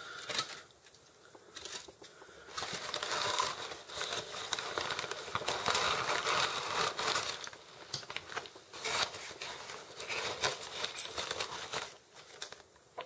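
Shipping packaging being opened and handled by hand: irregular crinkling and rustling with small clicks and tearing, dropping quieter for a moment about a second in and again near the end.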